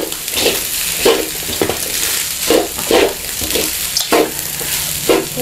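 Sausage fried rice sizzling in a large metal wok while a wooden spatula scrapes and turns it, in uneven strokes about twice a second.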